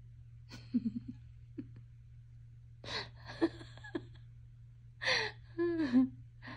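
A person's breathy, wordless vocal sounds: three short clusters of gasps and sighs with a soft murmured voice, over a steady low hum.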